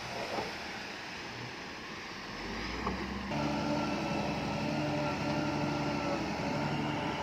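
Heavy earthmoving machine's diesel engine running. About three seconds in, the sound shifts suddenly from a rough noisy rumble to a louder, steady engine drone with a clear pitch.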